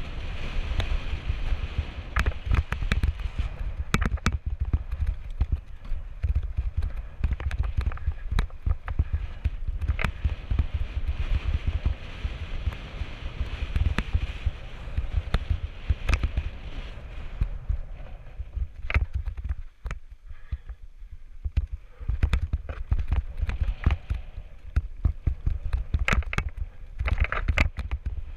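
Wind buffeting an action camera's microphone on a mountain bike descending dry, rocky singletrack, with frequent clicks and rattles from the bike and its tyres running over stones. The wind rumble drops for a few seconds about two-thirds of the way in.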